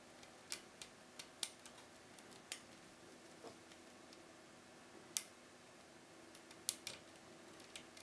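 Small, sharp metal clicks of a steel hook pick lifting the pins inside a small alarm key-switch pin-tumbler cylinder held under a tension wrench, about a dozen at irregular intervals, the loudest about two and a half and five seconds in.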